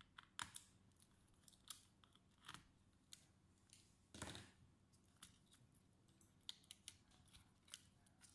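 Small scattered clicks and light scrapes of a screwdriver and fingers working on an opened laptop's motherboard and plastic chassis, with one longer rustling scrape about four seconds in.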